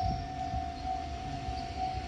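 Japanese railway level-crossing alarm ringing as one steady tone, over the low rumble of a passing Kotoden electric train.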